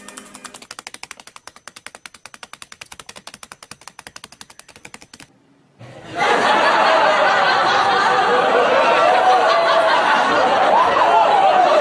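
A rapid, even run of clicks for about five seconds, cut off suddenly; after a short gap, loud overlapping voices that sound like laughter.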